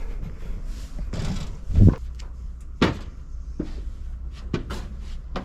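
Several separate knocks and thumps of parts being handled in the car's boot and dicky-seat body, with a short scrape about a second in. The loudest thump comes just before two seconds, then a sharp knock about a second later and lighter knocks after it.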